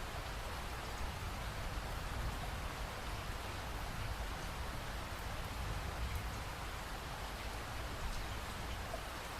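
Steady rain falling, an even hiss of drops with a low rumble beneath and faint scattered drop ticks.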